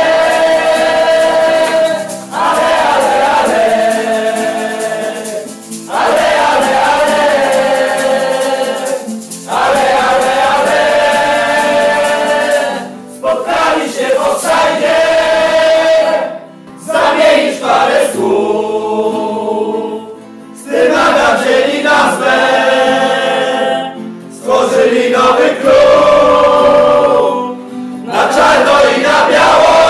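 A group of men and women singing a football club anthem together, in loud sung phrases of a few seconds each with short pauses between them.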